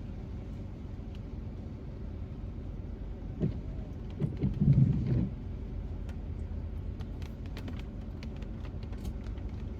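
Low, steady rumble heard inside a car, with a louder rumbling swell about four to five seconds in and faint scattered ticks afterwards.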